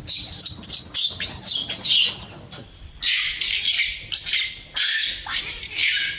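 A baby monkey crying with a rapid series of short, high-pitched squeals. They break off briefly about two and a half seconds in, then start again.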